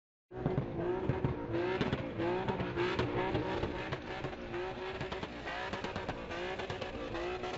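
Drift car's engine revving hard again and again, with tyres squealing as the car slides; the sound cuts in abruptly just after the start.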